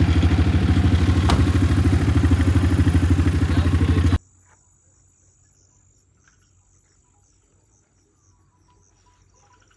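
A vehicle engine running steadily close by with a rapid even beat, cut off abruptly about four seconds in. Crickets then chirp steadily in the quiet that follows.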